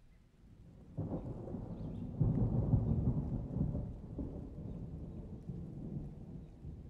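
A roll of thunder: a low rumble swells in, comes on sharply about a second in, is loudest a second or so later, then rolls on and slowly fades.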